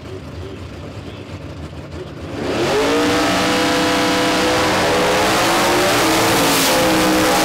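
Two Super Stock drag cars, an Oldsmobile Cutlass and a 1956 Chevrolet, idling at the start line, then launching about two and a half seconds in: both engines rev up sharply in pitch and run at full throttle, loud and sustained, as the cars pull away down the strip.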